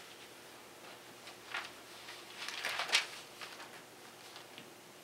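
Thin Bible pages rustling as they are leafed through, a few brief crinkles with the loudest flurry about three seconds in.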